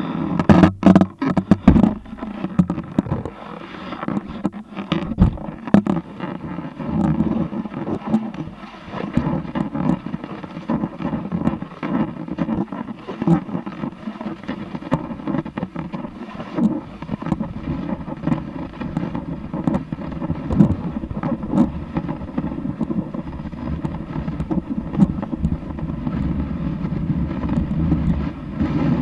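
Snowboard sliding over snow, heard through a camera mounted on the board's nose: knocks and clatter in the first few seconds, then a steady scraping rush of the base on the snow with wind on the microphone.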